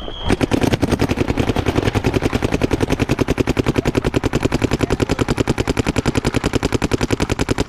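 Paintball marker, a Planet Eclipse Gtek 180R, firing a long unbroken string of shots at about ten a second to lay down a lane off the break, stopping suddenly at the end. A brief high steady tone sounds just before the shooting begins.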